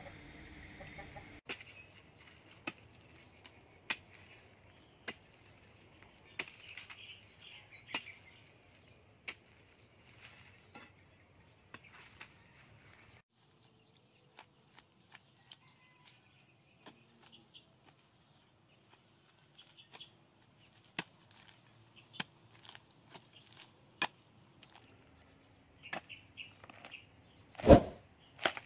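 Hand-forged steel digger hoe chopping into dry ground: sharp knocks about once a second, coming more sparsely after the middle, with one much heavier strike near the end. Chickens cluck in the background in the first part.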